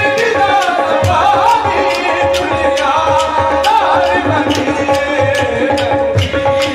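Qawwali music: a lead voice singing a bending melodic line over held harmonium tones, with tabla strikes at a steady beat.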